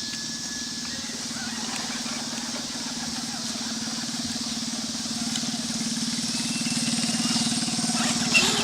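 Traxxas Bigfoot RC monster truck's electric motor and gears whirring steadily, growing gradually louder as the truck drives closer.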